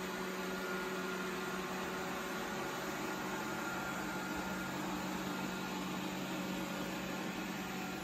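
Proscenic 820T robot vacuum cleaner running across a hard tile floor: a steady suction-fan hiss with a low, even hum.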